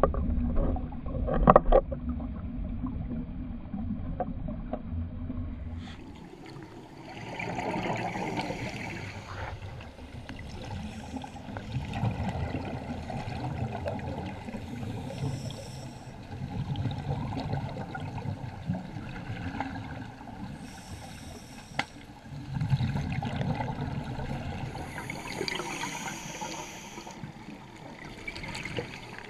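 Underwater sound of a scuba diver breathing through a regulator: exhaled bubbles rush and gurgle in swells every few seconds over a steady watery hiss, with a short loud burst near the start.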